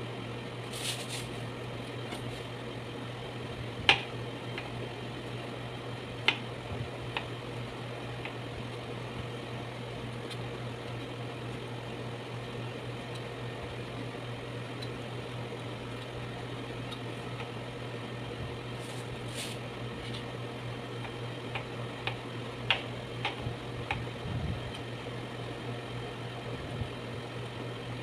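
Knife cutting pork fat on a cutting board: a few sharp taps of the blade on the board, several bunched together near the end, over a steady low machine hum from the kitchen.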